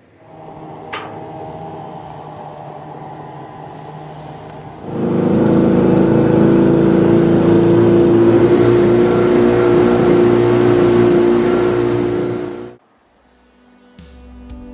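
Motor engine running steadily at a moderate level, then much louder and at a higher, steady pitch from about five seconds in, until it cuts off abruptly near the end. Guitar music starts just before the end.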